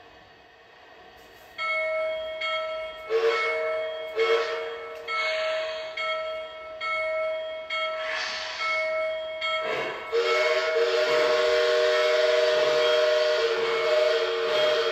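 Model locomotive's sound system sounding a multi-note train whistle: a run of short blasts, then one long blast with hiss from about ten seconds in.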